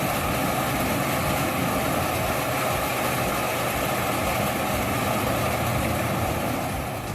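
Heavy engine of an industrial wood chipper running steadily, with a faint steady whine over its dense mechanical noise.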